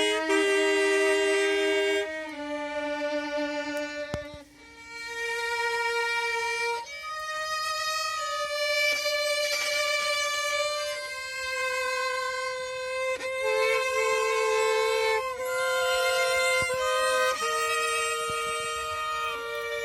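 Violin playing a slow worship melody in long held notes, some with vibrato, the notes changing every second or two.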